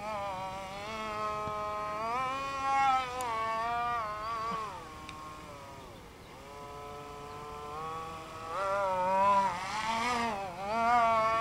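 Electric motor and propeller of an H-King Nino EPP radio-controlled aerobatic plane whining, its pitch rising and falling as the throttle changes. It eases off to a low, quieter point around the middle, then comes back louder and higher near the end.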